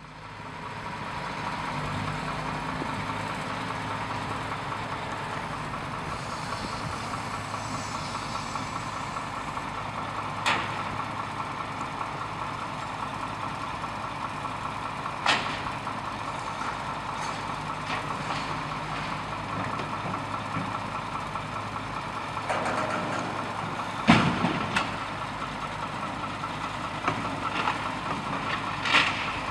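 Heavy diesel engine running steadily at a low, even level, fading in at the start. Several sharp knocks break through it, the loudest about 24 seconds in.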